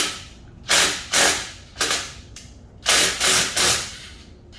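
Hand ratchet wrench clicking in short, loud bursts, stroke by stroke, as bolts are loosened to take off a turbo blow-off valve; the bursts come in three clusters with brief pauses between.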